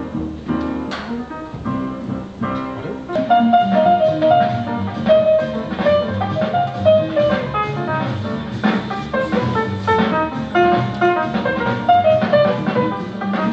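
Jazz music with guitar and drums, growing fuller and louder about three seconds in.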